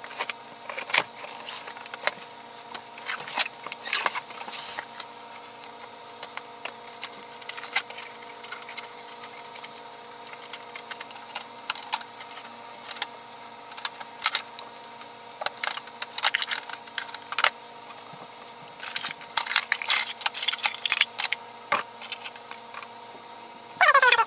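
Packaging being cut and pulled off a new inkjet printer: scissors snipping box tape, then cardboard, plastic bags and tape strips rustling and crinkling, with scattered light knocks and clicks. A faint steady hum runs underneath.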